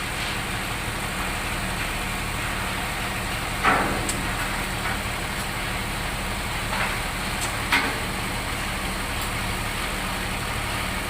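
An engine running steadily with a low hum, with a few sharp knocks, the loudest a little under four seconds in and another near eight seconds.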